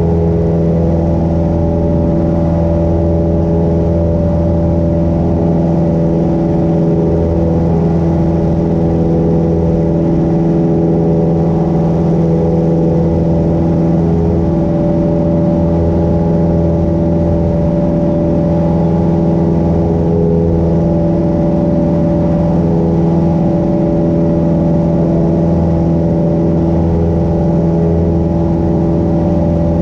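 Cessna 172 Skyhawk's piston engine and propeller running steadily in flight: a constant low drone made of several steady pitched tones, with no change in speed.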